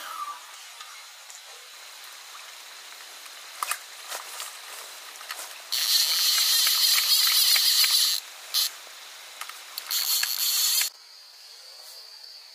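A fishing reel on a slingshot rifle being cranked to wind in the line: a whirring with a steady high whine, first for a couple of seconds about halfway in, then a brief burst, then about a second more near the end. A few light clicks come before the first winding.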